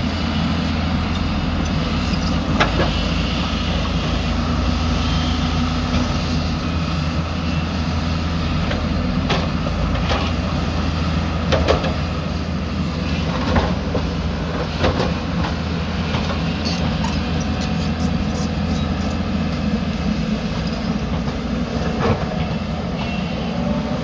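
Hyundai 220 crawler excavator's diesel engine running steadily under load, with irregular clanks and knocks of steel and rock as it digs and moves spoil.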